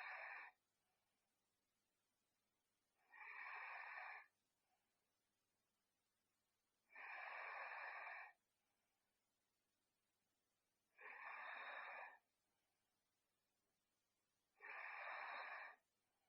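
A sleeping teenage girl's faint snoring: one breath roughly every four seconds, each lasting about a second, with near silence between them.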